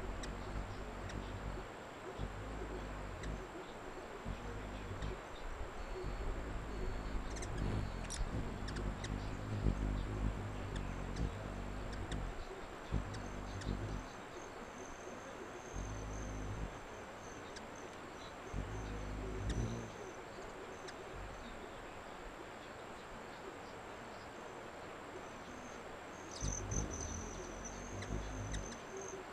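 Hummingbirds' wings humming as they hover and jostle at a nectar feeder, the hum coming and going in spells of a few seconds as birds fly in and out, with thin high chirps now and then.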